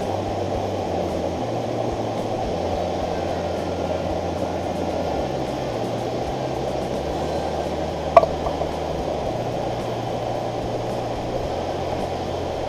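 Propane-butane canister stove burner running with a steady rushing noise, one short light clink about eight seconds in.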